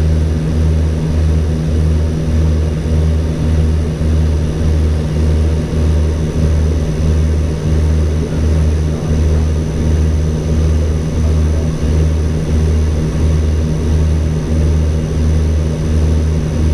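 An ATR 42-320's twin Pratt & Whitney Canada PW121 turboprops and propellers drone steadily, as heard inside the cockpit on approach. The deep hum pulses evenly, about three times a second.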